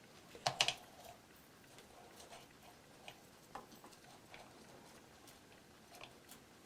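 A few sharp clicks close together about half a second in, then scattered faint ticks and taps, like small objects being handled and set down.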